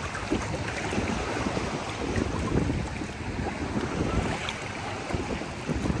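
Wind buffeting the microphone over the steady wash of shallow sea water and small waves around wading legs.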